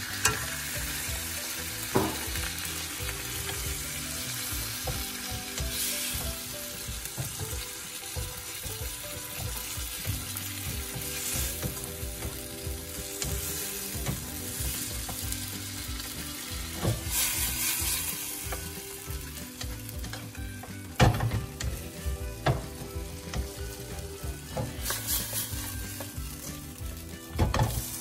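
Onion and bell pepper sizzling in a sauce in a wok, just thinned with water to make a gravy. A wooden spatula stirs and scrapes through it, knocking against the pan now and then.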